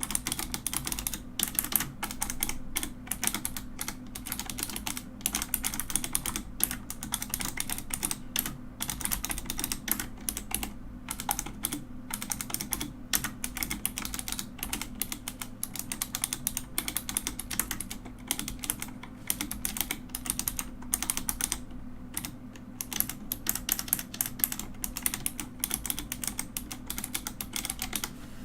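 Mechanical keyboard being typed on continuously: rapid, uneven click-clack of keys, with a few short pauses between runs.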